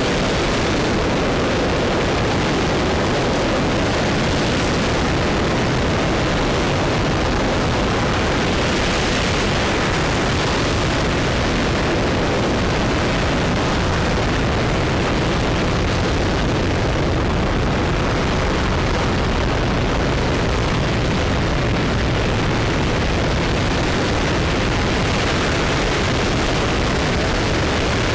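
RS-25 liquid-hydrogen/liquid-oxygen rocket engine firing during a hot-fire test: a loud, steady rumble of noise with no break.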